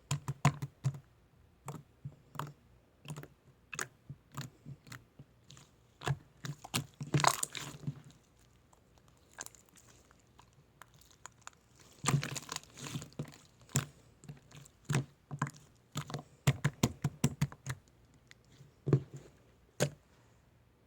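Irregular close-up clicks and crunches, with two longer crunching stretches, one about seven seconds in and one about twelve seconds in.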